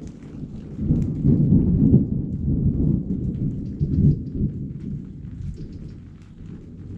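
Thunder rumbling, swelling about a second in, peaking twice and dying away toward the end, over light rain falling in scattered drops.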